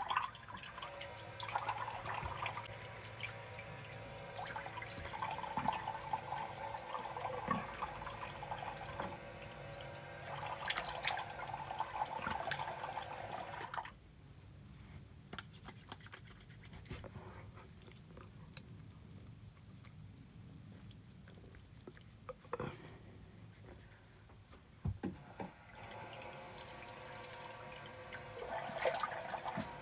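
Bathroom sink tap running into the basin, with splashing as a face is washed. The running water stops suddenly about halfway through, leaving quieter splashes and a couple of sharp knocks, and starts again near the end.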